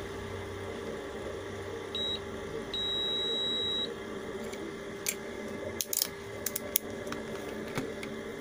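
Digital multimeter's continuity beeper sounding as its probes touch the legs of a TO-220 power component: a short beep, then a longer beep of about a second. A few light clicks from the probes and handling follow.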